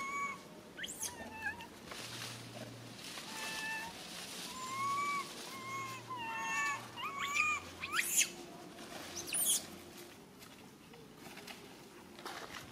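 A baby macaque crying for its mother: a string of short, arching, high-pitched cries, with a few sharper rising squeals about two-thirds through.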